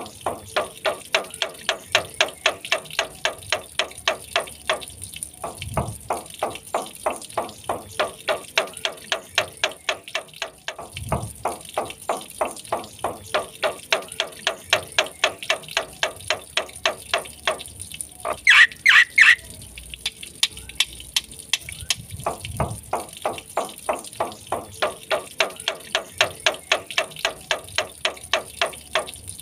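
Black-winged myna calling: a long run of rapid, evenly repeated harsh notes, about four a second, broken by a couple of louder shrill high calls about two-thirds of the way through.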